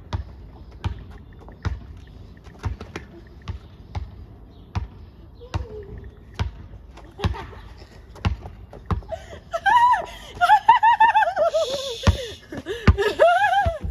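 Basketball being dribbled on a hard court, bouncing roughly once a second. In the last few seconds it is joined by a run of high, wavering squeaks.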